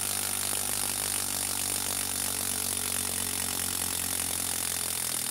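Bosch 12V impact driver running steadily in reverse, backing a 6-inch Spax wood screw out of a dense wooden log.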